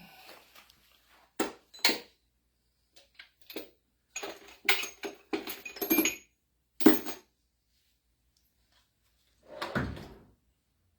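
Metal sockets and hand tools clinking and clattering as a toolkit is rummaged through, a run of sharp clinks, some ringing, followed by a softer rustle near the end.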